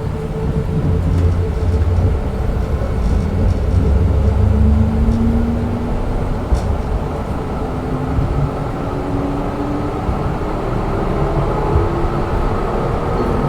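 Zürich Tram 2000 tram heard from inside the car while it is moving: a heavy low rumble of the running gear with a motor whine that slowly rises in pitch as the tram gathers speed. A single sharp click comes about halfway through.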